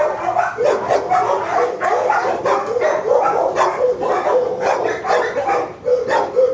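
Many dogs barking at once in a shelter kennel block: a dense, continuous chorus of overlapping barks and yelps with a few drawn-out notes.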